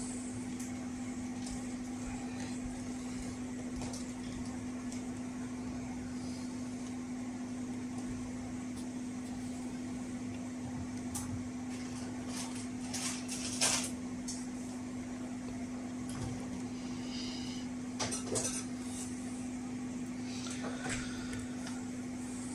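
Light clicks and taps of small tools and parts handled during soldering work, over a steady low hum. A cluster of louder taps comes a little past halfway and another near the end.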